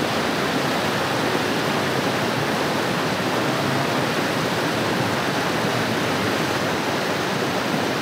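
Jungle stream rushing over rocks below a waterfall: a steady, even rush of water.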